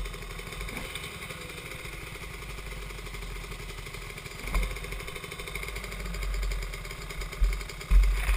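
Dirt bike engine running at low speed, pulling steadily along a narrow trail. Near the end come several loud bumps and knocks.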